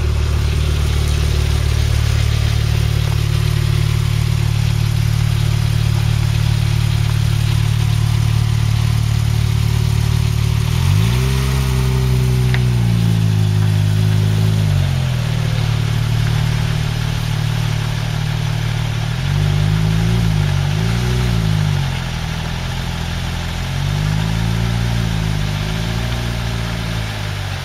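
Porsche GT2's twin-turbo flat-six running steadily, then revved: one long rise and fall of engine pitch about eleven seconds in, two quick throttle blips around twenty seconds, and a few more revs near the end.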